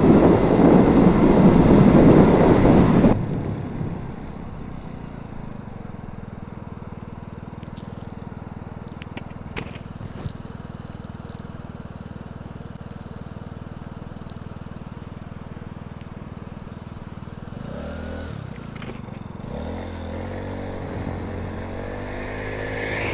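Wind and road noise from a moving motor scooter, cutting off about three seconds in. The scooter's small engine then idles steadily with a few light clicks, and near the end it revs up and picks up speed as the scooter pulls away.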